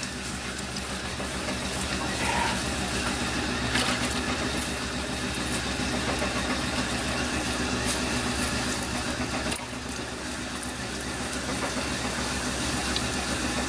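Potter's wheel running with a steady low mechanical hum while a plate is thrown on it.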